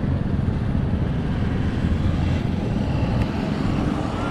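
Steady city street ambience dominated by the low rumble of car traffic on a multi-lane avenue.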